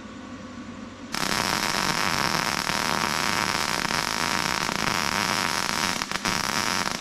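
Aerosol spray-paint can spraying in one long continuous hiss that starts suddenly about a second in, with two brief breaks near the end as the nozzle is let off.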